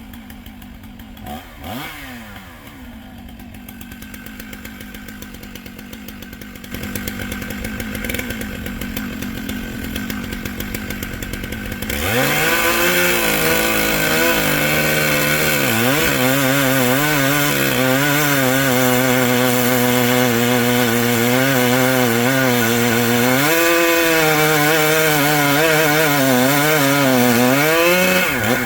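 Gas chainsaw idling at first, then from about twelve seconds in running at full throttle. Its pitch wavers under load as it cuts into a bur oak trunk to take off the root ball. The revs dip briefly once, pick back up, and fall away right at the end.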